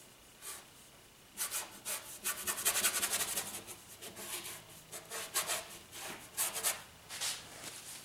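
Large paintbrush scrubbing thinned oil paint onto the painting in a run of short, scratchy strokes, starting about a second and a half in.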